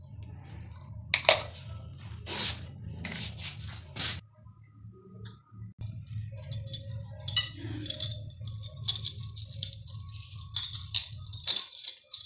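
Metal parts being handled during plumbing work: a few scrapes and knocks, then a run of small metallic clinks, over a steady low hum.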